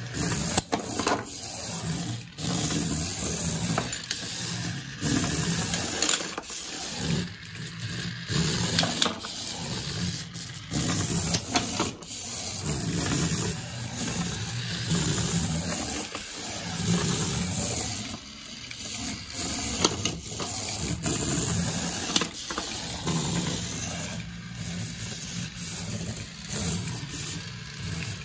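Small radio-controlled combat-robot model driving on a hard tabletop, its little electric drive motors whirring in repeated bursts as it starts, stops and turns, with scattered clicks and knocks from its plastic parts.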